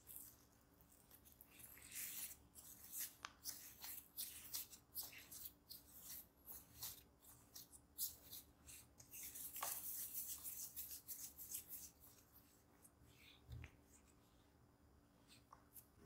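Hands pinching and rolling a ball of soft bread dough on a marble countertop: quick soft rubbing and light tapping, busiest in the middle and thinning out near the end.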